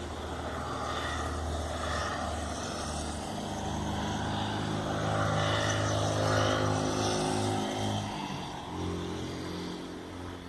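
A road vehicle's engine passing by: it grows louder to a peak about six seconds in, drops in pitch around eight seconds, then fades.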